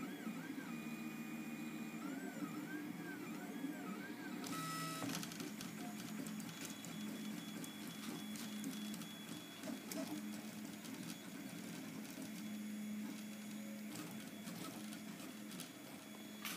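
3D printer's stepper motors whining as the print head moves, their pitch rising and falling in repeated arcs over a steady low hum. About four and a half seconds in, the sound turns busier: rapid short moves with many small ticks.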